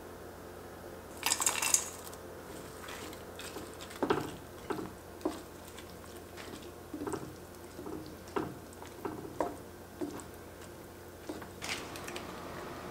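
Kitchen cookware sounds: a short metal clatter as broccoli florets are tipped from a stainless steel bowl into an enameled cast-iron pot of thick sauce. A wooden spatula then stirs them in, with irregular knocks and scrapes against the pot and soft wet squelches.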